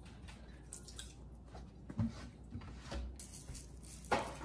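Seasoning shaken out of spice shaker bottles: faint, scattered taps and rattles, with a sharper knock about four seconds in.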